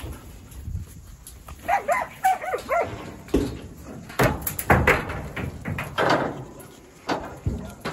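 Working sheep dog giving a series of short barks at a mob of sheep, with a wavering whine about two seconds in.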